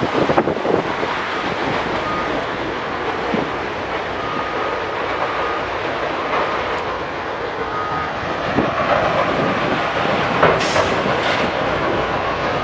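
Sawmill machinery running, a steady rumbling clatter with occasional knocks.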